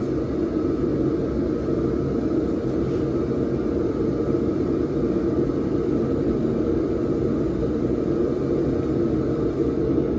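Blacksmith's forge running with a steady, even rumble.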